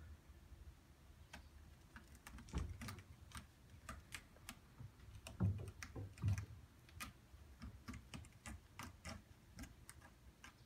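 A cat's claws and paws ticking and clicking as it bats and scratches at a sisal scratching post, a quick irregular run of sharp clicks with a few soft thumps, the loudest about five and a half seconds in.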